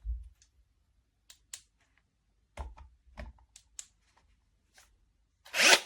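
Handling noises: a low bump, then a series of light clicks and knocks, and a loud rasping swish near the end.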